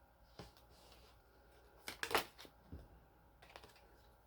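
A few soft taps and light rustles of tarot cards being handled, scattered and uneven, the loudest about two seconds in.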